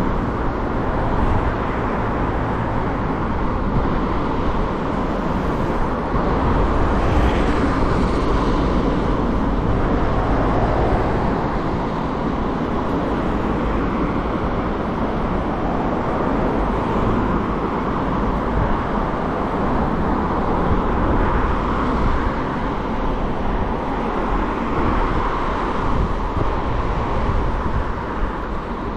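Steady, mostly low-pitched rush of wind and road noise while riding a scooter among traffic.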